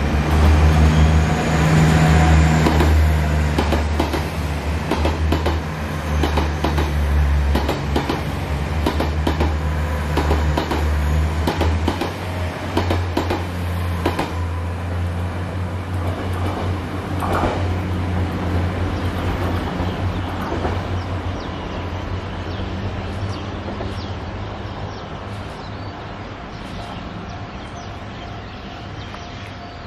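Diesel multiple unit express train passing through a station at speed without stopping: a low, steady diesel engine drone with wheels clicking over rail joints. It is loudest in the first few seconds, then fades slowly as the train draws away.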